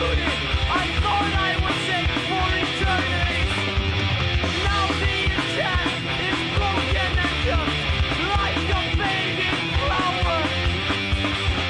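Hardcore punk band recording: electric guitar, bass and drums playing without a break.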